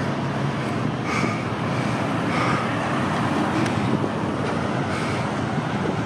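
Steady road traffic noise at a busy intersection, a continuous rumble of passing vehicles.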